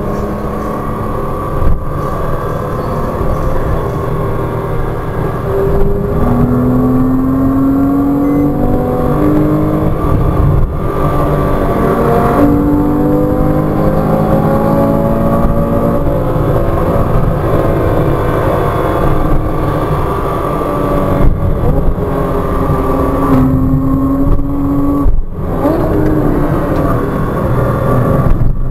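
Porsche Cayman 987.2's 2.9-litre flat-six, heard from inside the cabin under hard driving: it revs up through the gears, climbing in pitch and dropping back several times at the shifts and under braking.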